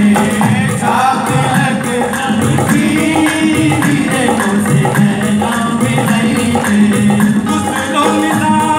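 Live qawwali: a chorus of male voices singing together over instrumental accompaniment and a steady rhythmic hand percussion.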